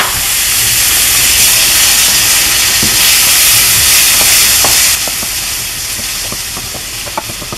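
Diced tomato sizzling in hot olive oil with sautéed onion and garlic in a ceramic-lined frying pan, stirred with a wooden spoon that clicks lightly against the pan. The sizzle is loud for about five seconds, then eases off.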